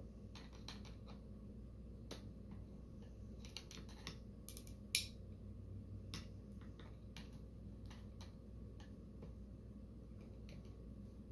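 Needle-nose pliers and a screwdriver clicking against metal parts inside an outboard lower-unit gear housing: scattered light metallic clicks and taps, with one sharper click about five seconds in.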